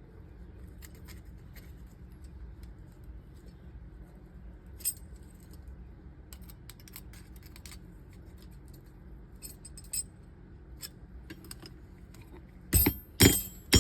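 Light metallic clinks of tools against steel over a steady low hum. About a second before the end come two or three sharp, ringing hammer blows on steel at the anvil.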